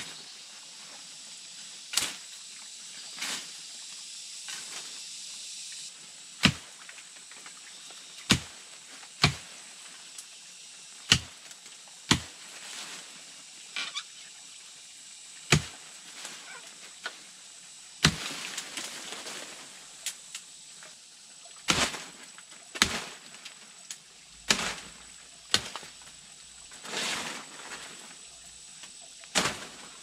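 A machete chopping into woody vines and brush: about a dozen sharp, irregular strikes, one to three seconds apart, with leaves and stems rustling between them.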